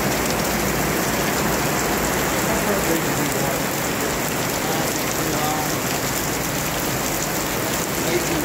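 Heavy rain pouring steadily onto pavement and parked vehicles, an even hiss with no letup.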